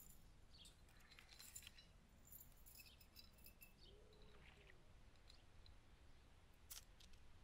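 Near silence: faint outdoor ambience with a few soft clicks and small scrapes.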